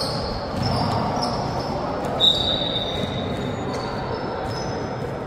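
Sneakers squeaking on a basketball court and a basketball bouncing during play, with a sharp, loud squeak a little over two seconds in.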